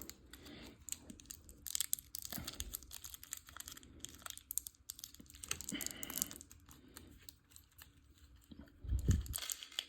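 Small plastic model parts and their packaging being handled: irregular clicks, light rustling and crinkling, with a low thump about nine seconds in.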